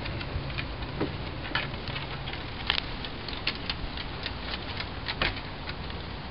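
A small dog's claws clicking and tapping irregularly on wooden deck boards, over a low steady rumble.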